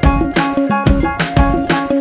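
Background music with a quick, steady drum beat of about four hits a second under held notes.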